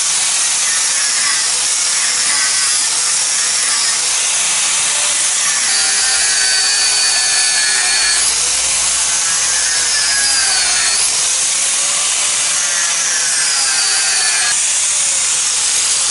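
Electric angle grinder grinding into a steel chassis frame, running continuously. Its motor pitch sags under load and picks up again as the pressure eases, over and over.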